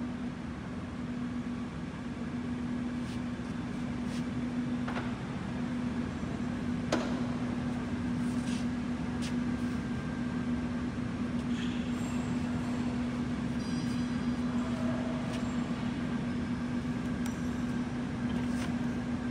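OMP Prealpine NS-300 gap-bed lathe running with a steady mechanical hum from its drive and headstock gearbox, with a few sharp clicks, the clearest about five and seven seconds in, as the speed levers are shifted and the spindle is set to about 107 rpm.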